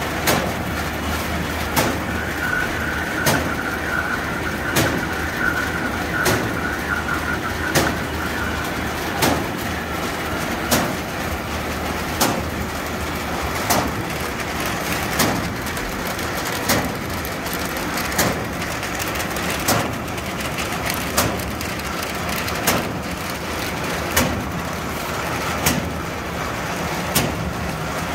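Matador 50 paper bag-making machine running, a steady mechanical hum with a sharp clack about every second and a half as it cycles. A thin high whine joins in for several seconds about two seconds in.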